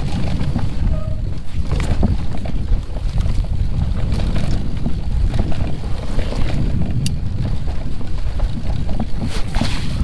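A mountain bike running downhill over a wet, snowy trail, with wind rumbling steadily on the microphone and scattered clicks and knocks from the bike over rough ground.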